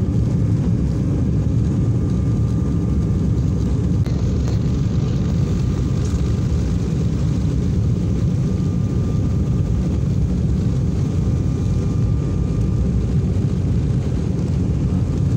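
Inside the cabin of a jet airliner on the runway: a loud, steady rumble of engine and rolling noise as the plane speeds along the ground on its takeoff roll.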